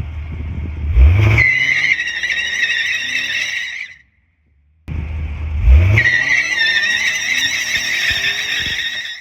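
Lexus IS 500's 5.0-litre V8 revving up hard while the tyres spin and squeal in a burnout, twice, with about a second of silence between the two. The high tyre squeal is the loudest part of each.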